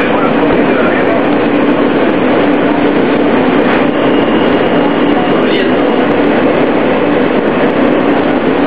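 Cabin noise of an R160A-2 New York City subway car running on the track: a steady rumble with a constant low hum.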